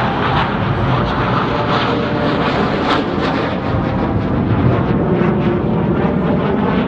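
Jet noise of J-10 fighters flying a display manoeuvre: a loud, steady, rough rush of engine noise.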